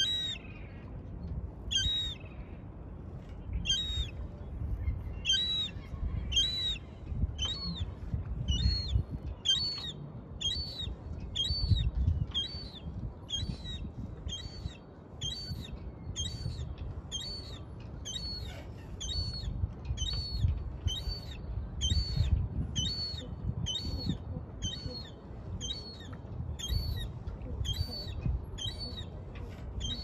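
Young gull calling over and over in short, high-pitched piping calls, about one a second at first and then quicker, the repeated begging calls of a fledgling gull. A low, uneven rumble sits underneath.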